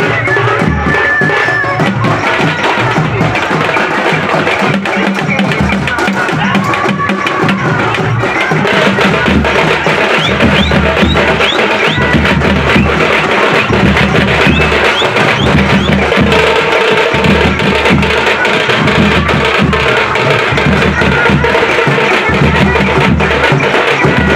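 Loud music driven by steady, rhythmic drum beats and sharp percussion strikes, growing a little louder about eight seconds in.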